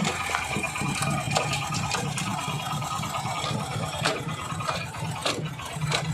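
Honda SP125 single-cylinder motorcycle engine idling steadily, with irregular sharp ticks and clicks over the hum, more of them in the second half. This is the abnormal noise the owner reports alongside the lit engine warning light.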